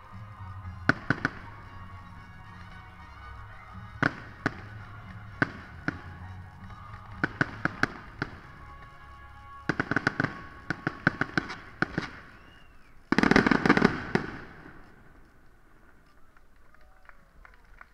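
Aerial firework shells bursting in sharp bangs, some alone and some in quick clusters of crackling reports. The loudest moment is a dense volley of about a second, a little past halfway, after which the bangs die away.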